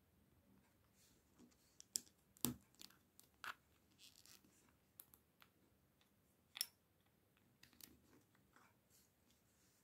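Plastic LEGO bricks clicking and snapping as small white pieces are pressed onto a grey plate: about half a dozen sharp clicks scattered through, the loudest about two and a half seconds in, with faint handling rustle between.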